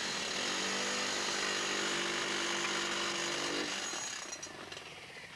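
A steady mechanical whirr with a low hum, like a small motorised tool running, that dies away about four seconds in.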